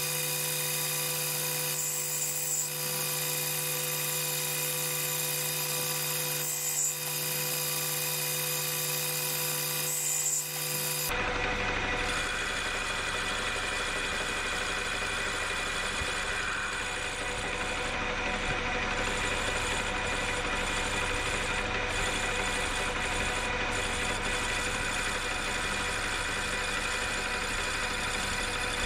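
Metal lathe running steadily while turning a pulley down to diameter, a constant machine hum with several steady whining tones. About 11 seconds in, the sound changes abruptly to a fuller, rougher running noise.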